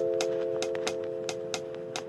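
Typing on the Size.L custom mechanical keyboard: a run of sharp key clacks, about three or four a second, over a held music chord that slowly fades.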